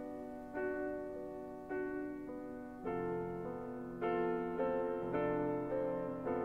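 Background music: slow piano chords, a new chord struck about once a second and left to fade.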